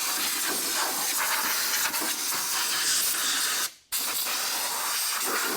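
Compressed air hissing out in two long, steady blasts, with a brief break a little under four seconds in.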